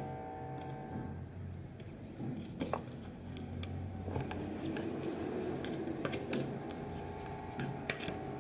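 Tarot cards being shuffled and drawn from the deck by hand: scattered soft clicks and rubbing, busier in the second half, over a low steady hum.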